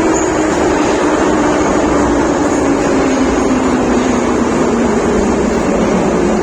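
81-717 metro train running, with a loud steady rumble of wheels and motors. Over it, the traction motors' whine falls slowly and evenly in pitch as the train slows.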